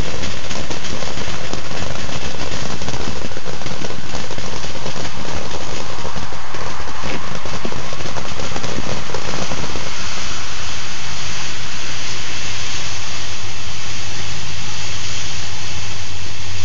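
Ground fountain firework spraying sparks with a loud, steady rushing hiss and dense crackle; the crackling thins out about ten seconds in.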